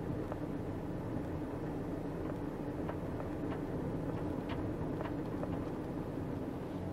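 A vehicle running steadily: a constant low rumble with a steady hum and a few faint clicks here and there.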